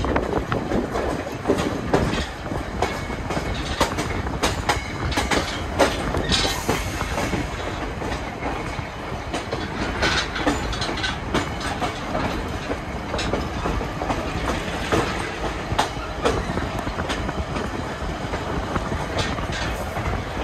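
Passenger railcar rolling along the track, heard from aboard: a steady rumble with wheels clacking over rail joints and irregular knocks and rattles from the car.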